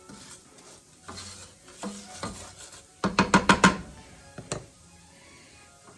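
A spoon stirring toasting rice in a pan, with scattered knocks and a quick run of clattering strokes against the pan about three seconds in.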